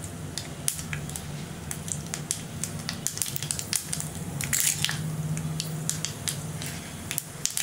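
Mustard seeds crackling and popping in hot oil in a small pan, many sharp irregular pops over a sizzle. About four and a half seconds in, a louder burst of sizzling as chana dal goes into the oil.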